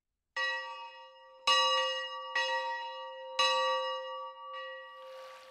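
Bronze bell in a cast-iron yoke struck five times, roughly a second apart, each stroke ringing on as one clear note with bright overtones; the last stroke is the softest. A soft hiss comes in near the end.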